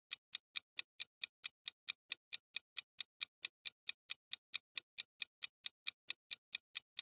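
Clock-ticking sound effect for a quiz countdown timer: short, even ticks, about four and a half a second.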